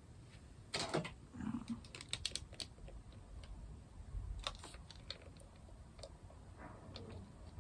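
Scattered light clicks and taps of small hard-plastic items being handled, with a quick run of them about two seconds in.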